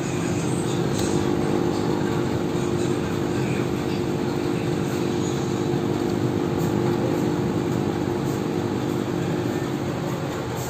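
Small electric aquarium air pump running at close range: a steady buzzing hum.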